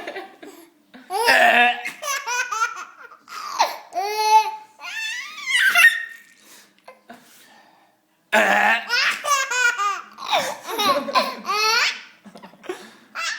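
Baby laughing hysterically in repeated belly-laugh bursts, with a pause of about two seconds in the middle.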